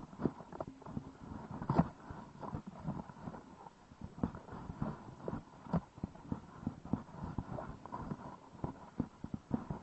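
Irregular knocks and taps, several a second, with some louder ones now and then, over a faint background haze.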